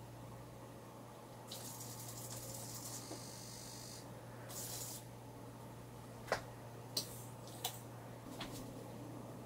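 Short bursts of hissing spray, two of them, followed by four sharp clicks, over a steady low hum.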